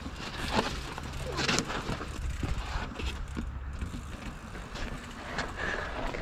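Mountain bike rolling down a rocky dirt trail: knobby tyres running over dirt and stones, with frequent knocks and rattles from the bike, picked up close on the handlebars.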